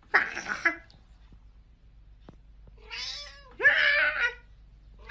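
Domestic cat meowing in drawn-out calls: a short one at the start and a longer one about three seconds in.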